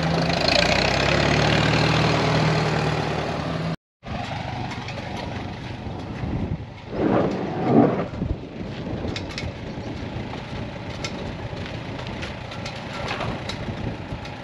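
Farmall M tractor's four-cylinder engine running steadily as it drives close by, for the first few seconds. After a sudden cut comes wind and handling noise as a heavy flat drive belt is uncoiled, with a brief louder rustle about seven seconds in.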